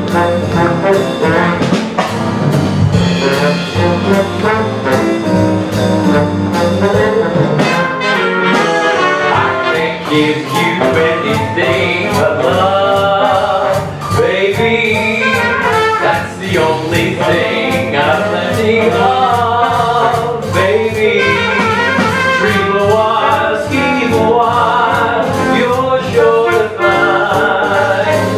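Live big-band jazz with a brass section, piano and drums, played at full volume; a steady drum beat comes in about eight seconds in.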